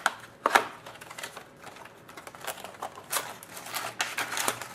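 A box of hockey cards and its packaging being handled and opened: irregular crinkling, tapping and clicking of cardboard and plastic wrap.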